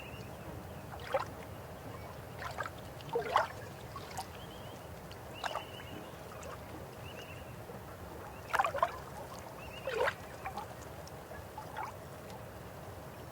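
River water flowing: a steady rush with irregular gurgles and plops. The loudest plops come about three seconds in and again around nine and ten seconds.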